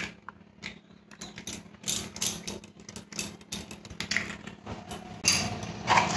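An eggshell being broken open and pulled apart by hand over a glass bowl: a run of small crackles and clicks, with a louder rustle about five seconds in.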